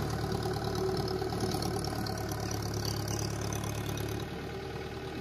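Mahindra Yuvo 475 tractor's four-cylinder diesel engine running steadily at low speed as it pulls a trailer away, growing slightly quieter about four seconds in.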